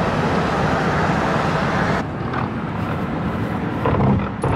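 Car driving on a highway, with steady tyre and wind road noise that is loudest at first. About two seconds in it drops to a quieter steady rumble, as heard inside the car, and there is a short louder burst near the end.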